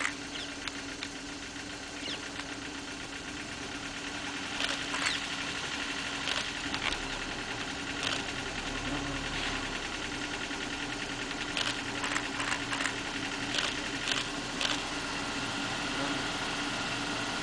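Safari vehicle's engine idling steadily, with a dozen or so short sharp clicks scattered through it.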